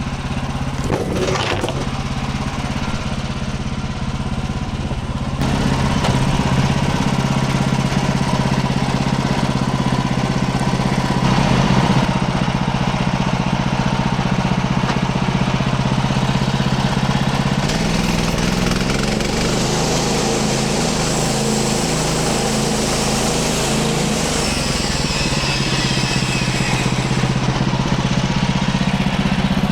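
Small gasoline engine of a Woodland Mills HM130 Max manual bandsaw sawmill running steadily while the band blade cuts through an ash log. It gets louder a few seconds in, and the engine note shifts about two-thirds of the way through, with more hiss from the cut after that.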